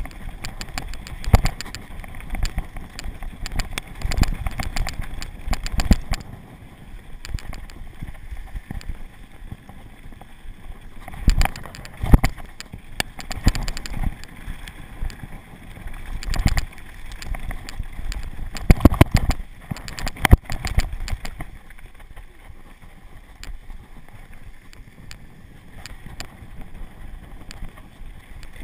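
Mountain bike descending a dirt downhill trail, heard from the rider's camera: tyres rumbling over the dirt and wind on the microphone, with the bike rattling and clunking over bumps. The loudest knocks come about a second in, around twelve seconds, around sixteen, and a cluster near nineteen to twenty seconds.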